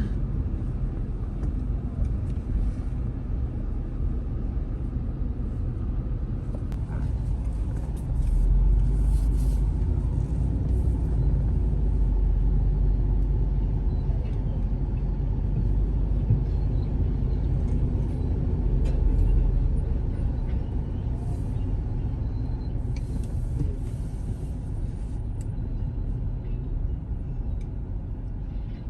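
Road noise from a moving car: a steady low rumble that grows louder about 8 seconds in and eases again after about 20 seconds.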